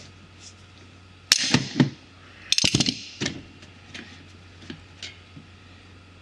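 Locking pliers wrenching a stuck, glued-on gear-shift knob off its shifter stem. There are two bursts of sharp cracks and clicks, about a second and a half and two and a half seconds in, then a few lighter clicks as the knob comes free.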